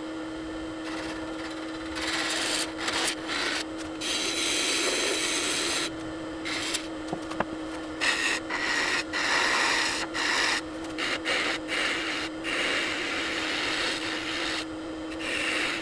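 Wood lathe running with a steady hum while a turning tool cuts into the spinning walnut-and-epoxy blank in short stop-start passes, shavings scraping and hissing off the wood, as when cutting a tenon and checking it with calipers. The cutting starts about two seconds in.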